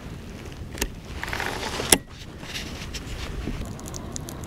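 Handling of a baitcasting rod and reel: two sharp clicks about a second apart, with a short hiss between them, over faint steady wind and water noise.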